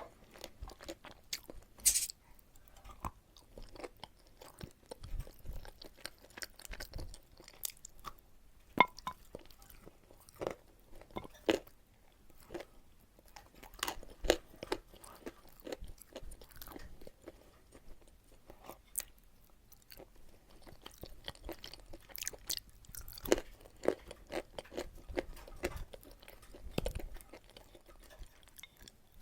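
Close-miked chewing of chalk mixed with a paste: irregular crunches and crackles as the chalk is bitten and ground between the teeth.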